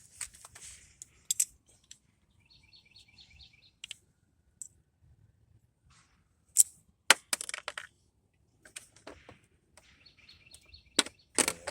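Scattered sharp metallic clinks and taps of hand tools working a stuck brake-rotor retaining screw on the front hub, the loudest near the middle and near the end. Two short runs of rapid high chirps come about 2.5 s in and again about 10 s in.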